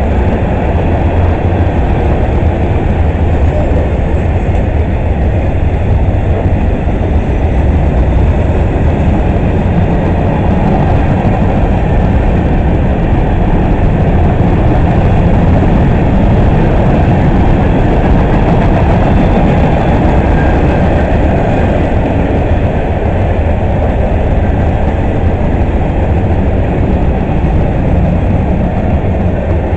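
Freight train cars rolling past: covered hoppers and boxcars of a long CSX manifest train. Their steel wheels make a steady, loud noise on the rails, heaviest in the low end.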